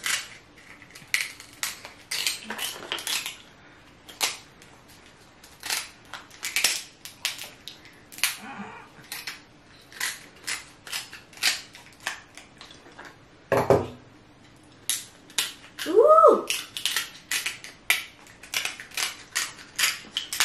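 Cooked king crab shell cracking and snapping as the legs are cut with kitchen shears and broken apart by hand: irregular sharp cracks and clicks throughout, with a heavier crack about two-thirds in. A brief squeak-like tone that rises and falls comes shortly after it.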